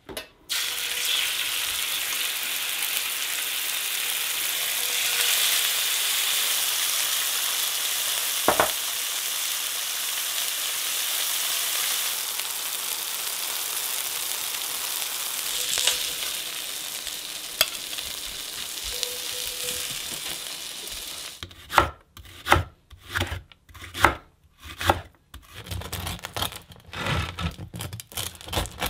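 Pike fillets sizzling steadily in hot oil in a cast-iron skillet. About 21 seconds in this gives way to a serrated bread knife sawing through the crust of a sourdough loaf in quick back-and-forth strokes, about two to three a second.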